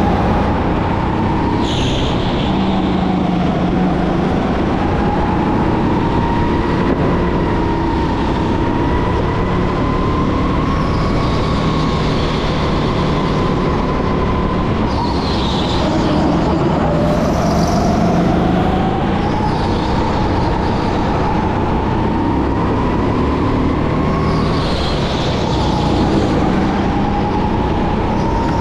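Racing go-kart at speed, its motor whine rising and falling in pitch as it speeds up and slows, with short high squeals several times.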